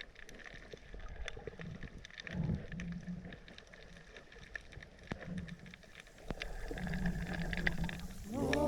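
Underwater ambience picked up by a camera in a housing: scattered clicks and crackles over low rumbling, with a couple of brief low hums. Music with a sung melody comes in near the end.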